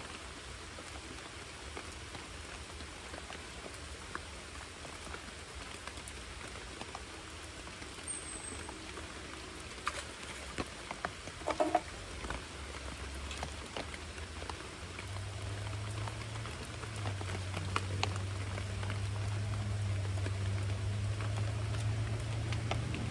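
Steady rain pattering on the creek and on the angler's rain-soaked clothes, with a few scattered clicks and knocks of handling. From about fifteen seconds in, a low engine hum comes in and grows steadily louder toward the end.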